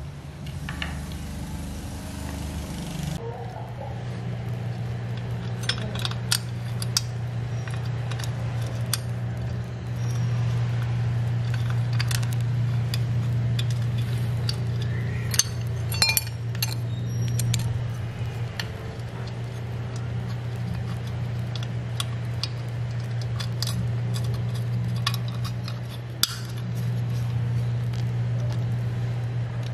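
Gasoline chainsaw engine parts and hand tools clinking and tapping as they are handled and fitted into the saw's housing, with scattered sharp clicks over a steady low hum.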